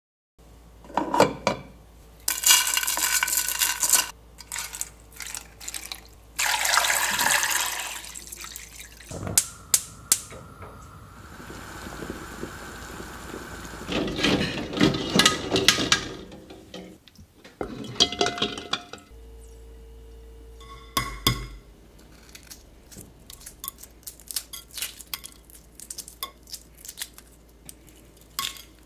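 Water running and pouring into an enamel pot of eggs, with metal clinks from a wire strainer against the pot. Near the end comes a run of small crackling ticks as a hard-boiled egg's shell is cracked and peeled.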